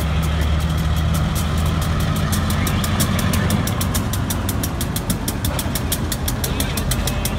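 Diesel freight locomotive engine running steadily, with a fast, even high-pitched ticking about five times a second over it.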